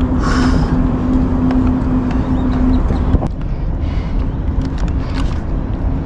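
Steady low rumble with a constant engine-like hum that weakens about three seconds in, and one sharp knock just after.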